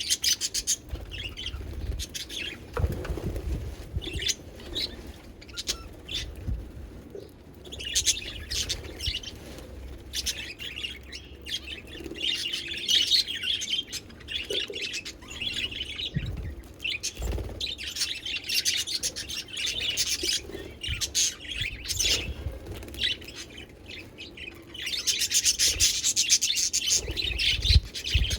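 Pet budgerigars chirping and chattering in bursts of short, high calls, with a few dull low thumps in between.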